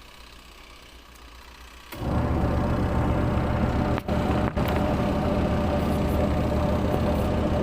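Washing machine motor switching on about two seconds in and running with a steady, loud hum, with two very brief dips in the sound a little later.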